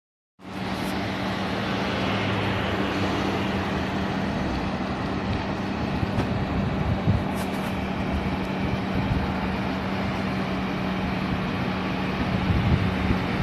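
Heavy-haul truck traffic: a steady engine drone with road noise, after a brief moment of silence at the start.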